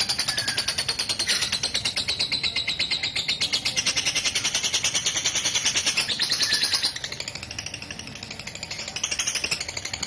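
Lovebird's long 'ngekek' chatter: a rapid, unbroken string of shrill chirps. It drops in loudness about seven seconds in and picks up again near the end.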